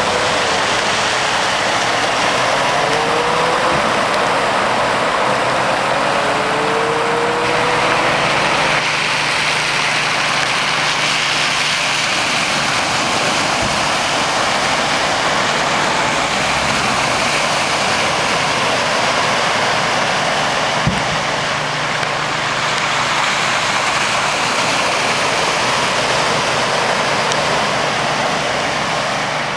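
Cars and a utility truck driving slowly through deep floodwater: engines running under a steady rush and splash of water. In the first several seconds an engine revs up in short rising whines a few times.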